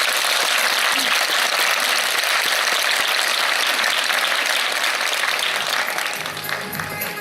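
Audience applauding, a dense steady clapping that thins out slightly near the end as music starts up.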